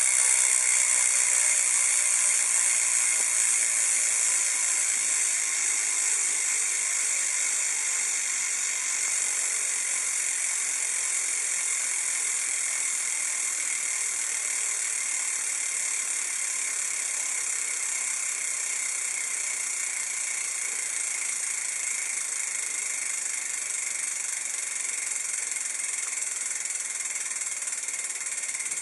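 Shadow Raptor rear cassette hub freewheeling, its pawls clicking over the ratchet so fast that they merge into a steady high-pitched buzz, which slowly gets quieter as the wheel coasts down.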